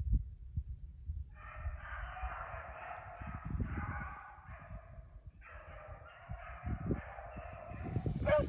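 A pack of beagles baying on a running rabbit's track, many voices overlapping in two long stretches of a few seconds each, the hounds bringing the rabbit back around. Low rumble and knocks come from wind and handling on the microphone.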